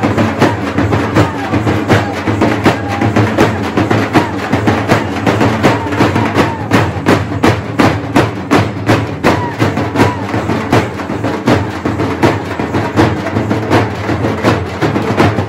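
Group of dappu frame drums beaten with sticks in a fast, dense rhythm, several strikes a second.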